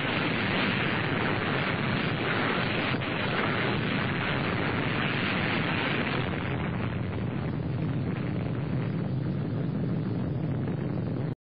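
Atomic bomb explosion on a film soundtrack: a dense, steady rumble and hiss that holds at one level and cuts off suddenly near the end.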